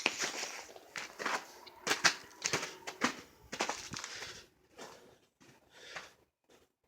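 Footsteps, about two a second for roughly four and a half seconds, then almost nothing.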